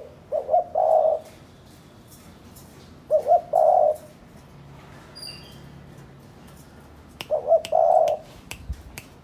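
Spotted dove cooing: three phrases about three and a half seconds apart, each a few short quick notes running into a longer, louder coo.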